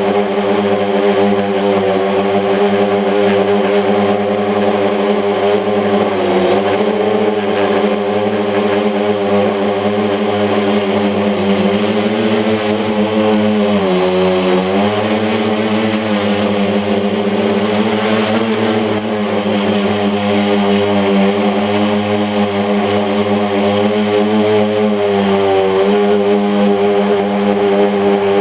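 Electric motors and propellers of a mini FPV tricopter running steadily, a buzzing whine whose pitch dips briefly as the throttle is eased, most deeply about fourteen seconds in. One motor has a bent shaft, which the uploader blames for vibration.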